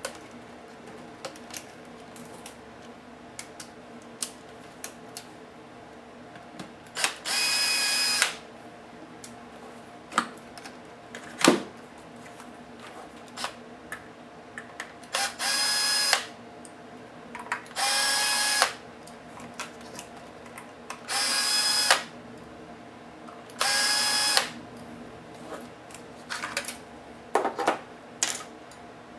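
Cordless drill-driver spinning in five short runs of about a second each, backing the screws out of a 2.5-inch laptop hard drive's metal mounting caddy. Sharp clicks and taps of the small metal parts being handled come between the runs, the loudest a little before the second run.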